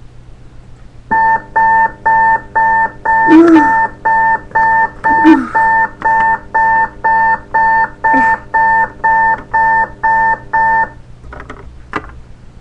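Electronic alarm clock beeping, about two beeps a second, starting about a second in and stopping near the end. A person's voice makes three short sounds over the beeping.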